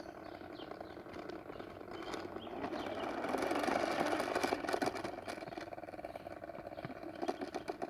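Plastic bubble-blowing toy lawnmower being pushed along: a rapid, steady clicking rattle from its mechanism, which swells for a couple of seconds partway through.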